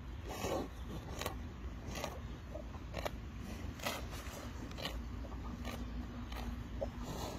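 Highland cow grazing close up, tearing off mouthfuls of grass with crisp ripping crunches about once a second.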